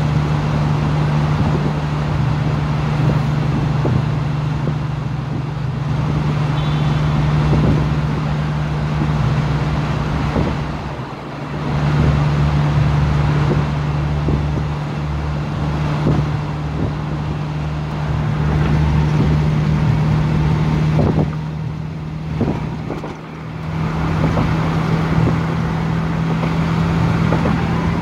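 Car engine drone and tyre noise heard from inside the cabin while driving at highway speed, a steady low hum over road rush, easing off briefly twice.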